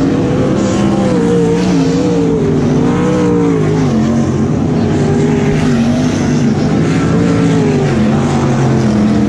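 Several LS1 V8 sprint cars racing on a dirt oval, their engines rising and falling in pitch as they pass close by and back off for the turns, several engines heard at once.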